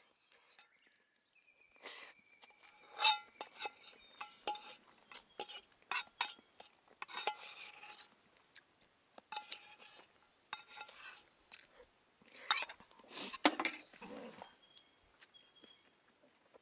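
Metal spoon scraping and clinking against a metal mess tin and a stainless steel bowl while eating, a string of sharp clinks and scrapes with short metallic ringing, busiest about three seconds in and again near the end.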